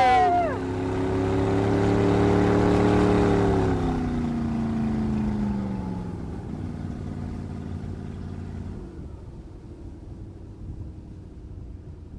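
Motorboat tender's engines running, then throttled back with a falling pitch as the boat comes alongside, idling lower and dropping away about nine seconds in. A short shout of "woo" at the very start.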